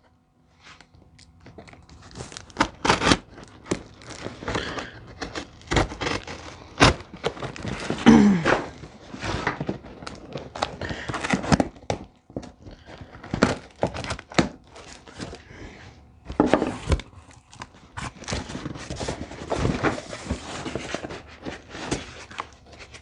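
A cardboard shipping box being opened by hand: packing tape tearing, cardboard flaps rustling and thunking, and packing material crinkling, in irregular bursts.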